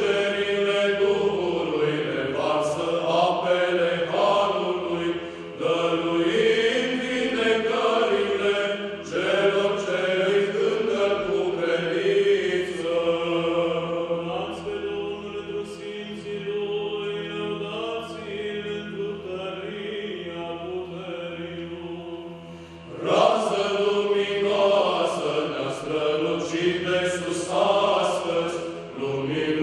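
Male choir singing Byzantine chant a cappella, the melody moving over a low note held steady beneath it. About three-quarters of the way through, the singing suddenly becomes louder.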